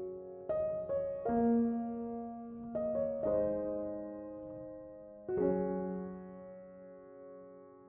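Background piano music: slow, sustained chords struck every second or two, the last one fading out near the end.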